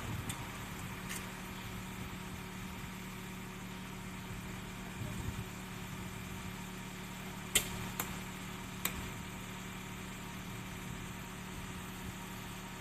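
An engine idling steadily with an even low hum, and three sharp clicks a little past halfway through.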